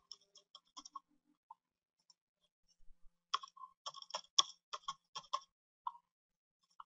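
Typing on a computer keyboard: a few scattered key clicks in the first second and a quicker, louder run of about a dozen keystrokes from about three to five and a half seconds in.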